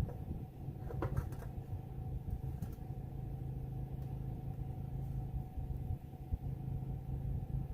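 A steady low mechanical hum, with a couple of sharp clicks about a second in.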